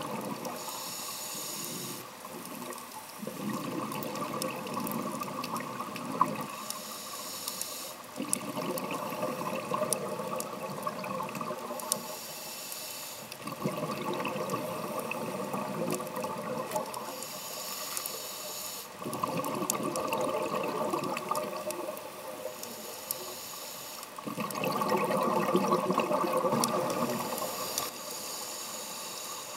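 Scuba diver breathing through a regulator, heard underwater: a short hiss on each inhale, then a longer rush of exhaled bubbles. There are five breaths, about one every five to six seconds.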